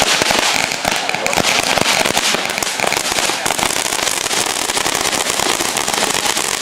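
Fireworks going off in a dense, continuous run of rapid crackling pops.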